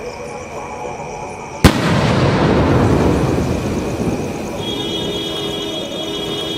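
Large aerial firework shell (Supreme Fireworks Romeo Juliet sky shot) bursting overhead about a second and a half in: one sharp bang, followed by a long rumbling echo that slowly fades.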